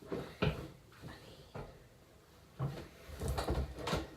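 A cabinet being opened and things inside rummaged through: a couple of single knocks, then a burst of knocks and rattles in the last second and a half.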